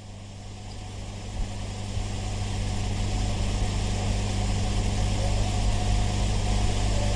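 Steady hiss with a low electrical hum in the recording, slowly growing louder, with no voice.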